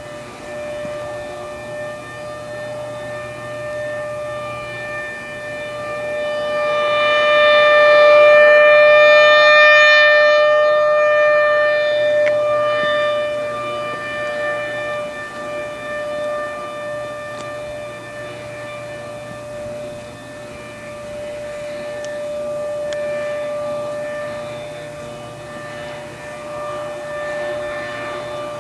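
Federal Signal Thunderbolt 1000 civil defense siren sounding a steady single tone, swelling loudest about eight to eleven seconds in and again more faintly near the end as its rotating head sweeps past. Its blower is malfunctioning, so the tone is weak and quiet rather than the full scream.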